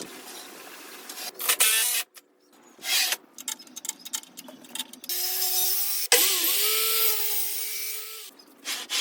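A run of short workshop clips with abrupt cuts between them: power tools running and cutting wood, with a steady motor whine in the longer, louder stretches in the second half.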